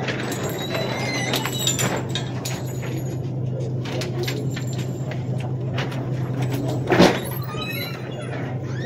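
Steady low hum with a haze of faint clatter, and one sharp knock about seven seconds in.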